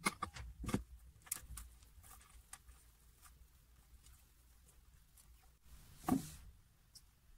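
Hands working potting soil and a spider plant's root ball out of a terracotta pot: soil crumbling and rustling with small clicks and scrapes, busiest in the first couple of seconds, with one louder handling sound about six seconds in.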